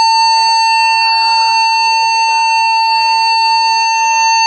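Shipboard emergency alarm sounding one loud, steady, unbroken tone.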